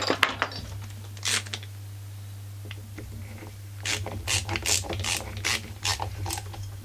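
A ratcheting screwdriver clicks as it drives the oil-pump mounting screws into a Husqvarna 44 chainsaw crankcase. There are a few single clicks at first, then quick runs of several clicks a second from about halfway.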